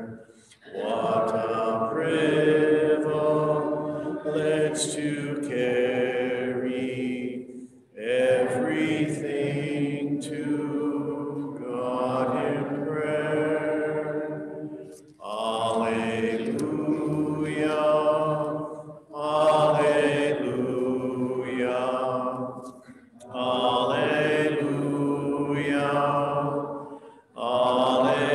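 A slow, chant-like alleluia prayer song, sung in long held phrases of several seconds each, with short pauses for breath between them.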